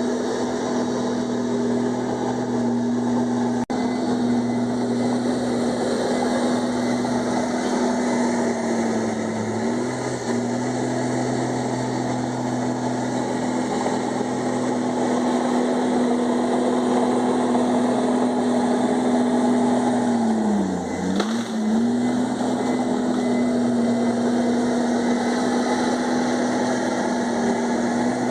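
Komatsu D51EX bulldozer's diesel engine running steadily at working speed. Its pitch sags briefly twice, most deeply about two-thirds of the way through, before recovering.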